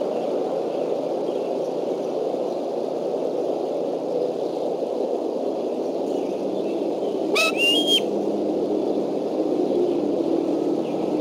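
A bald eagle gives one short, whistled call that steps upward in pitch, about seven seconds in. Under it runs a steady rushing background noise.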